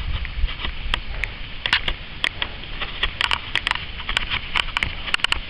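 Footsteps crunching on a dry sandy path, heard as irregular sharp clicks, over a steady low rumble of wind on the microphone.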